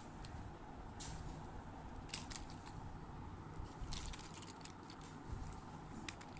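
Small plastic toy vehicles and building blocks being handled, giving a few light clicks and clatters as they are knocked and set down, over a steady low background hum.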